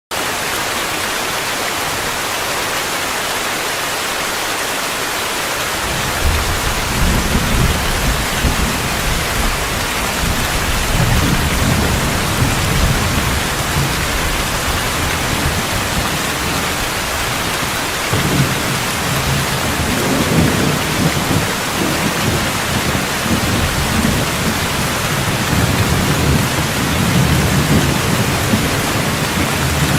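Steady heavy rain, with low rolling thunder that comes in about six seconds in and rumbles on, easing briefly before swelling again.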